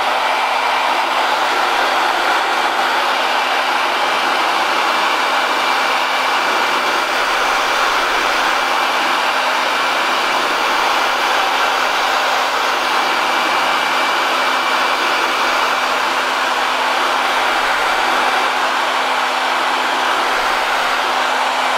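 Handheld electric hot-air dryer running steadily: a constant whoosh of blown air with a low motor hum and a faint high whine. It is drying freshly brushed water-based ink on a wooden box to speed up the drying.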